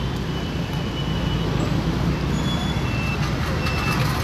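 Diesel engine of a Volvo wheeled excavator running steadily with a low rumble.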